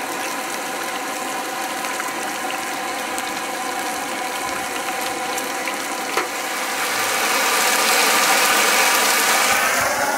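Pork boiling down in a pan on a portable gas stove, a steady sizzling hiss that grows louder from about six and a half seconds in. Underneath it is the steady hum of an engine running.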